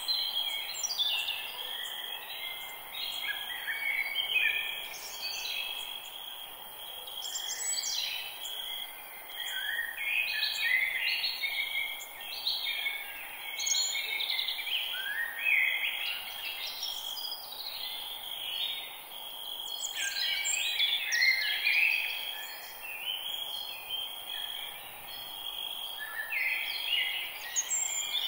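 Forest birds singing, with short chirping phrases overlapping in bursts every few seconds over a steady high-pitched drone.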